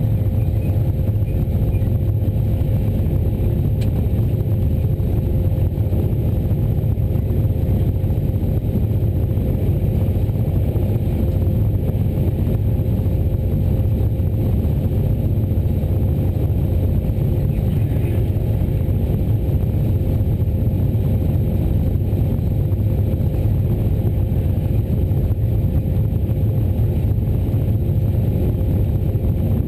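A train running at steady speed, heard from on board: an even low rumble with a faint steady hum above it, unchanging throughout.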